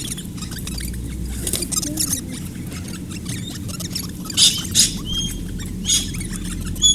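Birds feeding at very close range: dense fine scratching and clicking of claws and beaks, with several short shrill calls and brief whistled notes from about four seconds in.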